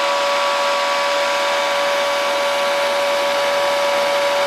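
Cooling fan of a MOSFET full-bridge induction heater running, making a lot of noise: a steady hiss with a constant hum of a few tones over it, as the heater works on the workpiece.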